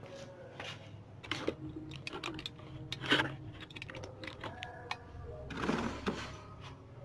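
Scattered clicks and light knocks, with a brief hiss about five and a half seconds in, over a faint steady hum.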